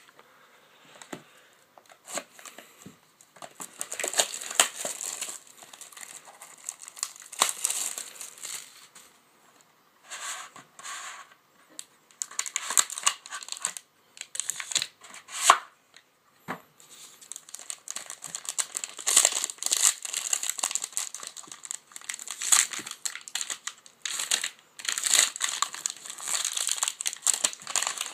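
Plastic wrapping on a box of football trading cards being torn open and crumpled by hand, in irregular crackling runs broken by short pauses.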